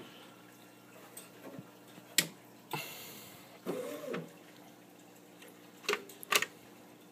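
Hands working the paper and print-head carriage of a TRS-80 Line Printer V: a few sharp clicks and a short rustling scrape just before three seconds in, over a faint steady hum. The printer itself is not printing.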